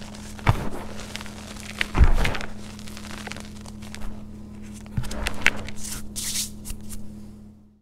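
Hands squeezing and crumbling dry yellow-green powder and reformed clumps: soft crunches and crumbling rustles, with sharper crunches about half a second, two seconds and five seconds in, over a faint steady low hum. The sound fades out near the end.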